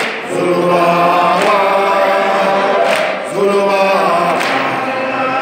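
A crowd singing a South African struggle song together, many voices without instruments, in repeated phrases about a second and a half long.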